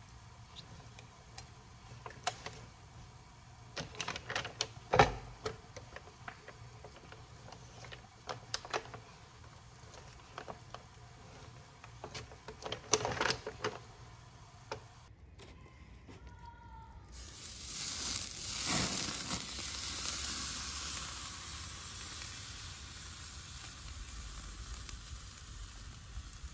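A whole fish sizzling steadily on a charcoal grill grate; before that, a chef's knife scoring the fish on butcher paper, with scattered knocks and paper crinkles.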